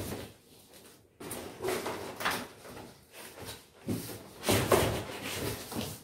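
Large cardboard carton being opened by hand: its flaps are pulled back and the packing inside handled, in uneven scrapes, rustles and knocks.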